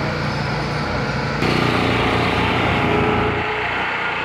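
A small engine running steadily, with the sound changing abruptly about a second and a half in.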